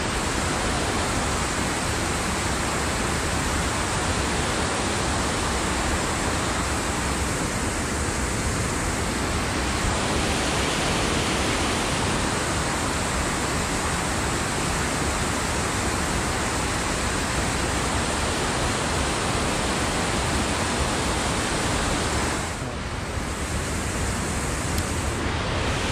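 Steady rushing of water pouring over a dam and waterfall, a full, even noise that dips slightly for a few seconds near the end.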